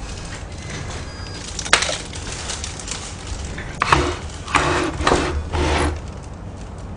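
A sharp click, then a plastic carrier bag crinkling and rustling in four short bursts as it is handled.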